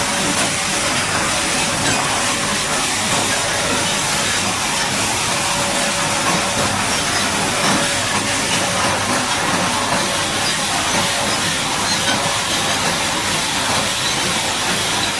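High-pressure water jet spraying onto a bulldozer, a loud steady hiss of water. A faint steady hum under it stops about six and a half seconds in.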